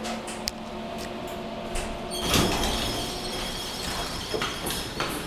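Elevator cab travelling down the shaft: a steady hum, a rumble and jolt about two seconds in, then a high steady tone, with a few sharp clicks near the end.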